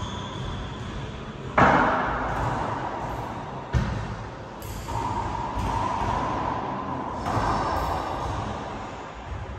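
Racquetball rally: sharp cracks of the ball struck by racquets and rebounding off the court walls, each ringing out in the enclosed court, the loudest about one and a half seconds in. A steady squeak lasts about two seconds in the middle.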